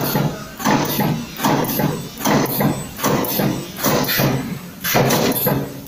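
Automatic XY-axis wire spot-welding machine running through a row of welds: the welding head strikes and releases in a steady cycle, about one weld every three-quarters of a second.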